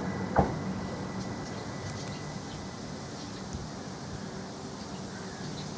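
A Southern Class 377 electric train running away from the crossing, its rumble dying down, with a single sharp knock about half a second in.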